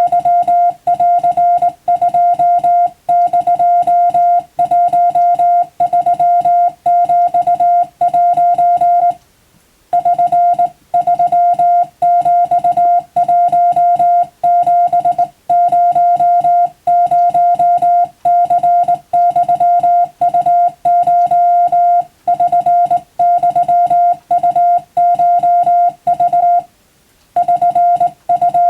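Morse code tone keyed in rapid dots and dashes, sending Japanese wabun code as telegraph receiving practice, with two short pauses between groups, about nine seconds in and near the end.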